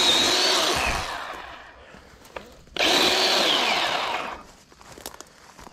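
A power saw running flat out, let go about a second in so its high whine winds down, then started again suddenly just before the middle for a second burst that also winds down.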